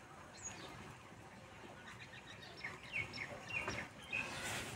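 Faint bird chirping: scattered short high chirps, coming in a quick run from about two and a half seconds in.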